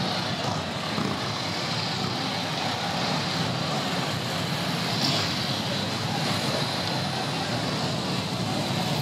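A column of large motorcycles riding past one after another at low speed, their engines running in a steady, continuous drone.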